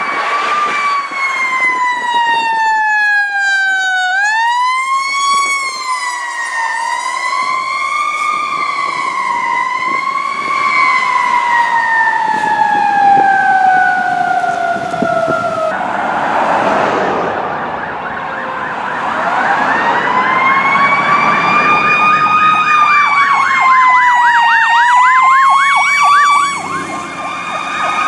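Fire truck sirens on an emergency response: a wail rising and falling, then winding slowly down until the sound changes abruptly about halfway through. A siren then winds up again, switches to a fast yelp for a couple of seconds near the end, and gives way to a steady tone.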